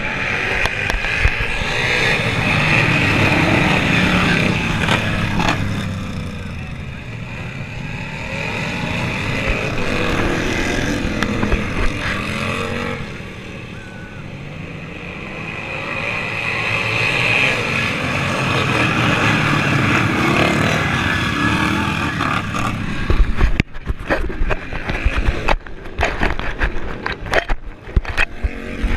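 Racing lawn mower engines running, the sound swelling and fading several times as mowers go round the track. Over the last five seconds it breaks up into choppy, irregular crackling.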